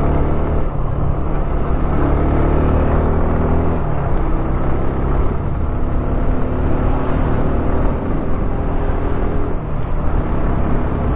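Motorcycle engine running while being ridden, its note rising and falling a few times as the throttle opens and closes.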